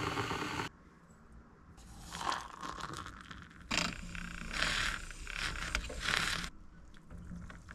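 A Cosori glass electric kettle rushing at the boil, cut off sharply within the first second. After a short pause, an Aerolatte battery handheld milk frother whirs in a mug of coffee, a low motor hum under uneven splashing and swishing for several seconds.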